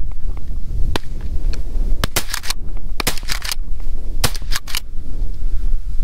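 A rapid string of shotgun shots from several hunters firing at a flushed rooster pheasant: about a dozen shots between about one and five seconds in, several in quick clusters. Wind rumbles on the microphone underneath.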